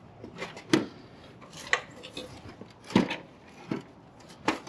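A series of light knocks and clinks, about one a second, from an aluminium-step fibreglass step ladder being handled and stepped on as it is moved along the car.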